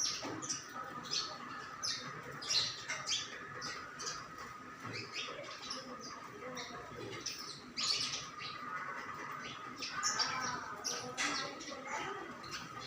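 Small birds chirping: many short, high calls in an irregular series over a steady thin tone.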